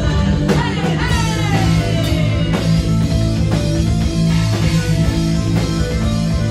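Live rock band playing loud: electric guitar, bass guitar and drum kit, with a few falling sliding notes in the first couple of seconds.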